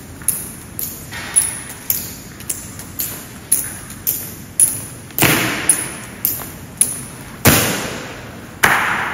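Navy honor guards' hard-soled boots striking a stone floor in slow, measured marching steps, about two a second, each step ringing with echo. Near the end come a few heavier, louder strikes.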